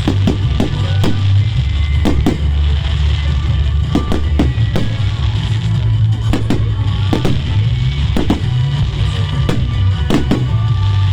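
Fireworks exploding in a fast, irregular string of sharp bangs and cracks, over loud music with a heavy, steady bass.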